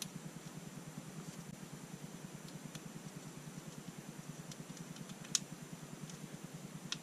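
Faint steady hum of room tone with a few small clicks from hands working at an AR-15's safety selector lever, the sharpest click about five seconds in.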